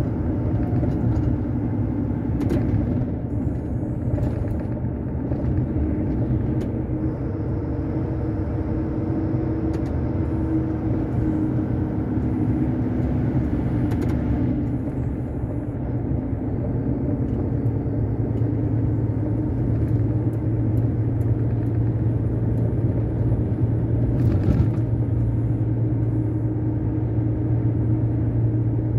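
Truck's diesel engine and road noise heard from inside the cab while driving: a constant low drone that grows stronger about two-thirds of the way through, with a few faint clicks.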